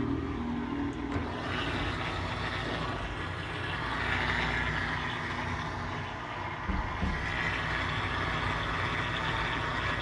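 Consul Facilite 10 kg washing machine in its spin cycle, spinning a load of cloths: a steady motor hum under an even rushing noise that swells and eases.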